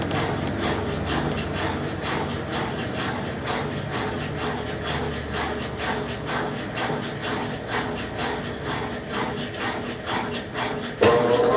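Brastemp Ative! BWC10 top-load washing machine agitating its rinse water, a rhythmic sloshing swish about two strokes a second. Near the end a louder motor hum with a slightly rising pitch starts suddenly.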